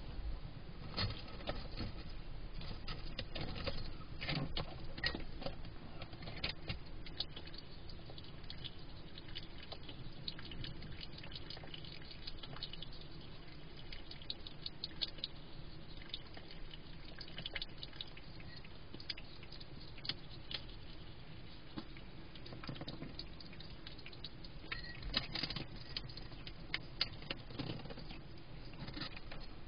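Hedgehog feeding at its bowls: irregular crunching and small clicks of chewing, with the scuffle of its feet. The clicks are busiest in the first few seconds and again near the end.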